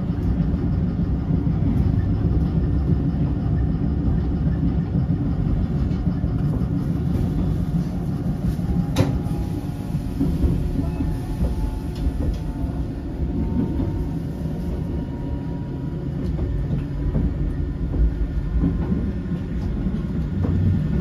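Eizan Electric Railway electric train running along the track, heard from inside the front of the car: a steady low rumble of wheels and running gear, with one sharp click about nine seconds in and a faint whine for a few seconds around the middle.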